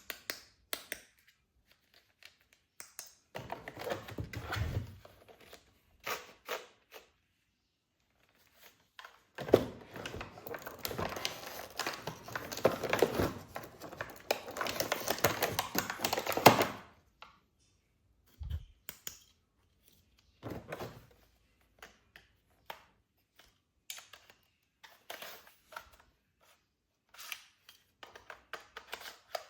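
Toy packaging and plastic toy gun parts being handled: scattered clicks and knocks, with a long stretch of rustling and tearing of packaging in the middle.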